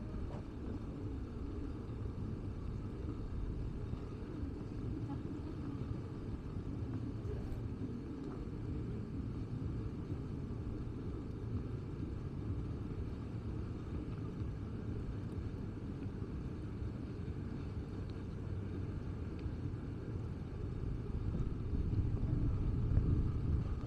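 Steady low rumble of city street background noise, mostly distant traffic, growing a little louder in the last few seconds.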